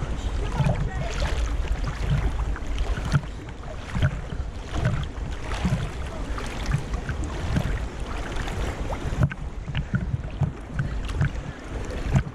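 Wind buffeting the microphone, with irregular splashing of water.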